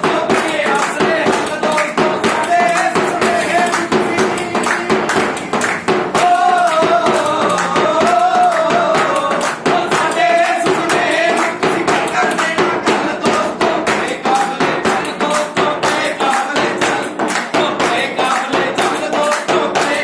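Group of voices singing and chanting over a fast, steady beat of hand claps and a steel plate beaten like a drum.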